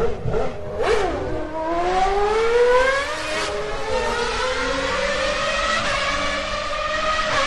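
Formula One car engine revving, its pitch climbing over the first few seconds and then holding steady at high revs, as the engine sound effect opening a dance track.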